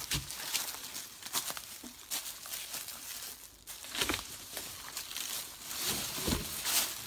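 Footsteps crunching through dry leaf litter on a dirt trail: irregular crackling steps, with a couple of heavier thuds about four and six seconds in.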